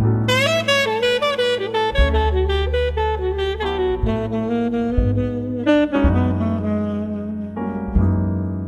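Background jazz music led by a saxophone melody over a bass line.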